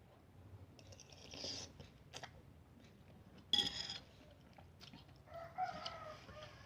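Quiet eating sounds of someone chewing, with a short sharp noise about three and a half seconds in and a brief pitched, wavering sound near the end.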